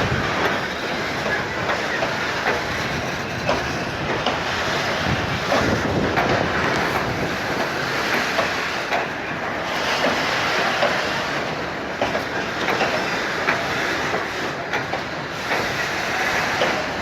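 Train wagons rolling past, their wheels clacking over the rail joints amid a steady rushing noise.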